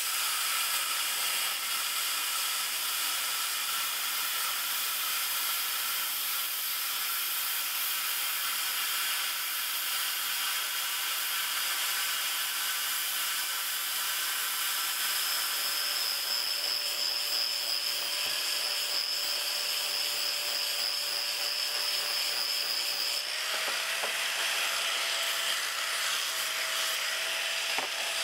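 Handheld plasma cutter cutting steel plate: a steady hiss from the arc and its air jet. The sound changes about five seconds before the end, when a faint steady tone comes in.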